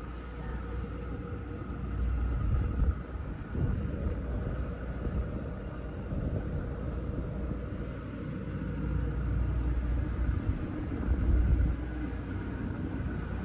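Wind buffeting the microphone on an open quay: a low, gusty rumble that swells and eases several times, over a steady faint hum.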